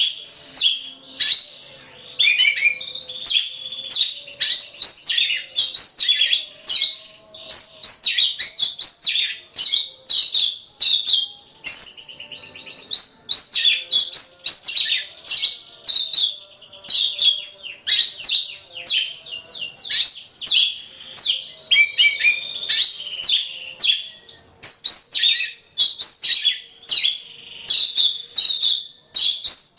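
Oriental magpie-robin (kacer) singing a continuous, rapid song of short, sharp chirps and quick whistled sweeps, many notes a second with hardly a pause.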